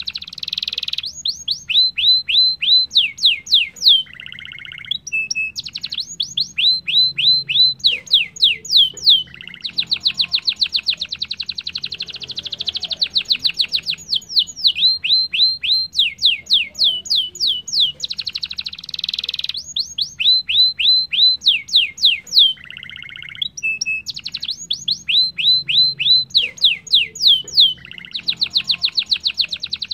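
Domestic canary singing steadily in rolled trills: fast runs of rapidly repeated down-slurred whistled notes, each run lasting one to three seconds before the bird switches to a new phrase, with a couple of brief lower, buzzier phrases between them.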